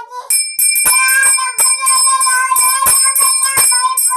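Small brass puja hand bell shaken by hand, its clapper striking about three times a second so that it rings continuously with a bright, steady tone.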